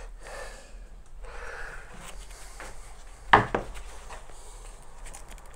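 Handling sounds on a diesel engine's cylinder head: hands and gloves rubbing and shifting metal parts, with one sharp knock a little past halfway through and a lighter click just after.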